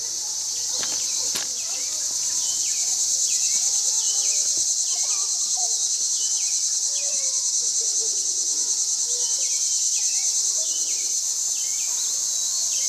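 Steady high-pitched chorus of night insects, with a short falling chirp repeating about every half second and two faint knocks about a second in.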